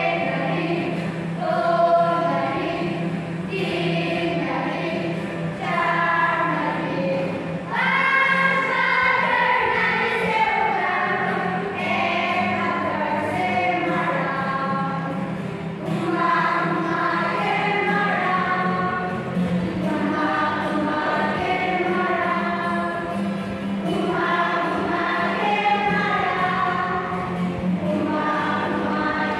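A group of children singing a song together, accompanied by an acoustic guitar.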